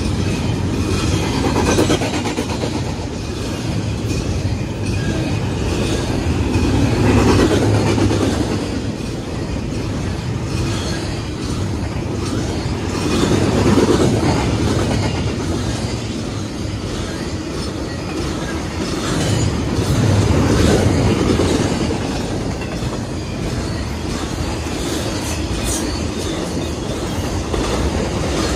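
Intermodal freight train passing at track speed, its double-stack container cars and trailer flatcars going by with a steady wheel-on-rail noise that swells and eases about every seven seconds.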